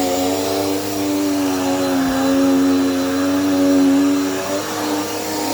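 Dirt Devil Power Max vacuum cleaner running, its motor making a steady whine whose pitch wavers and dips slightly about four and a half seconds in as the vacuum is worked over the floor. It is a new machine; the owner calls this noise not uncommon and says it is quieting down as it breaks in.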